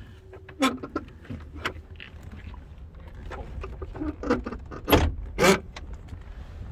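Scattered clicks, rubs and knocks of someone moving about inside a car's cabin while filming, over a low steady rumble. The two loudest knocks come about five seconds in, half a second apart.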